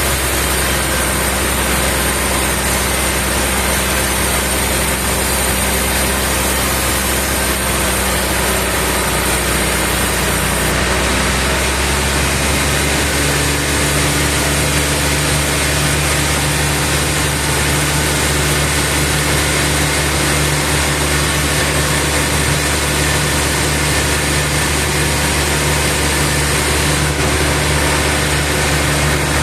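Sawmill machinery running steadily with a loud mechanical hum, its tone shifting to a different pitch about eleven seconds in.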